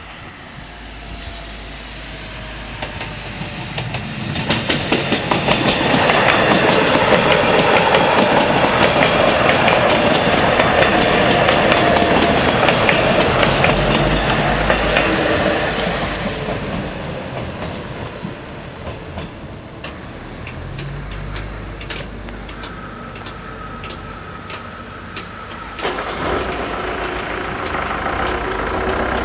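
A regional train passing over a level crossing, building up, loud with wheel clatter for several seconds, then fading away. In the second half, evenly repeating strikes from the crossing's warning bells are heard.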